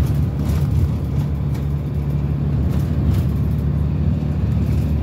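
Engine and road noise heard from inside a moving minibus: a steady low rumble.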